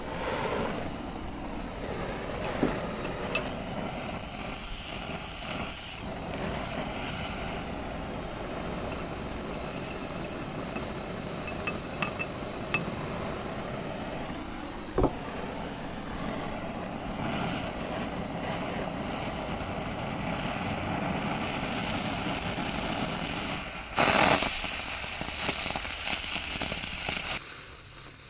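Oxy-acetylene torch burning steadily, heating silver in a quartz crucible for casting, with a few sharp clicks along the way. The torch gets louder for a second or two near the end, then the level drops off.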